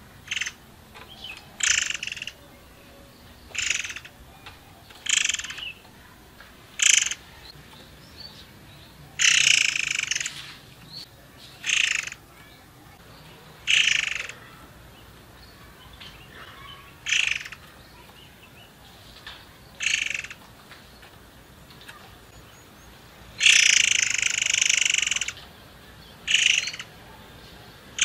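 Caged murai air songbird calling: short call notes repeated every second or two, with a longer phrase about ten seconds in and a longer, fuller phrase of about two seconds near the end.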